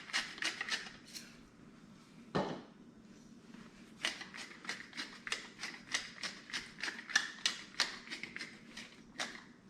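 Hand-twisted salt and pepper grinder cranking out seasoning in quick clicks, about three or four a second, with a pause and a single knock in between.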